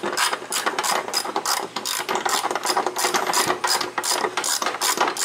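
Ratchet wrench clicking steadily as it is swung back and forth on a fastener on a small engine, about four clicks a second.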